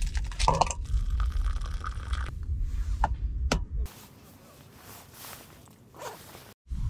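Foil seasoning sachet crinkling and rustling as dried soup mix is shaken into an empty paper soup cup, over a low rumble, with a couple of sharp ticks about three seconds in. The rustling stops about four seconds in.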